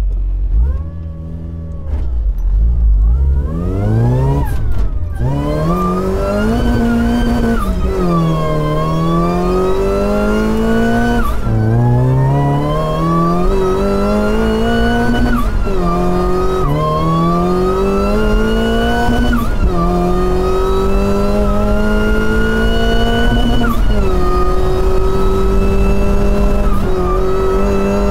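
Supercharged Mazda MX-5 Miata's four-cylinder engine and exhaust pulling away from low revs about two seconds in, then accelerating through the gears. The revs climb steadily and drop at each change, several times over.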